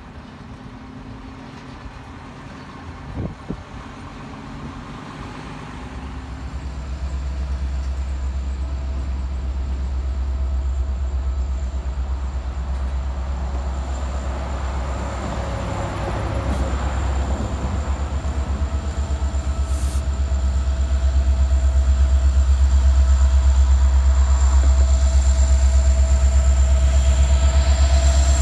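Norfolk Southern diesel locomotive approaching and passing close by at the head of a double-stack container train: a deep engine rumble that grows steadily louder, with a steady high-pitched whine over it. A single short knock about three seconds in.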